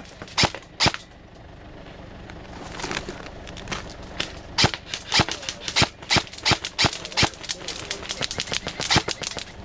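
Airsoft guns firing single shots as sharp cracks. Two shots come just after the start, then after a lull a steady string of shots at about two a second begins about four and a half seconds in.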